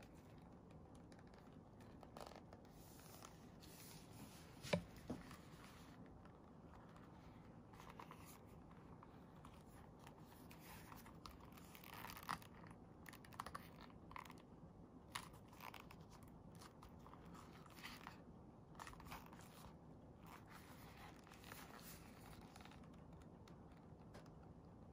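Faint handling sounds of a cordovan leather long wallet: leather rubbing and scraping under the fingers as the wallet is turned, opened and closed, with two sharp clicks close together about five seconds in.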